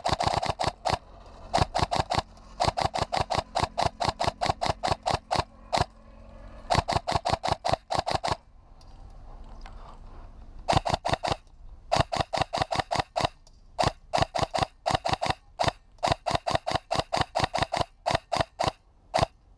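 Airsoft rifle firing quick strings of shots, about eight a second, in several runs with short pauses: covering fire.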